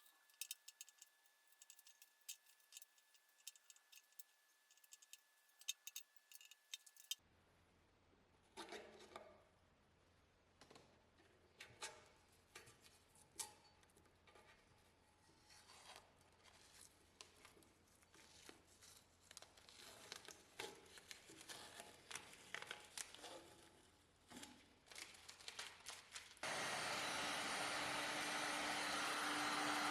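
Small clicks, taps and scraping of metal parts and hand tools being handled at a workbench. Near the end a steady loud hiss with a low hum starts and holds.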